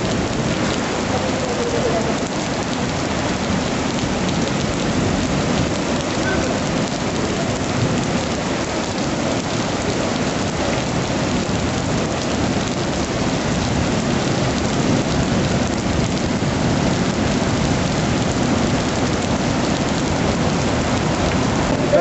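Steady rushing of a muddy flash-flood torrent, mixed with falling rain.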